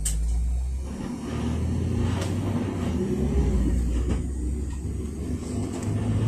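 GAZelle Next minibus's Evotech four-cylinder engine, running on liquefied petroleum gas, pulling away and getting louder, heard from inside the passenger cabin with low road rumble. There is a sharp click right at the start and a few faint rattles after it.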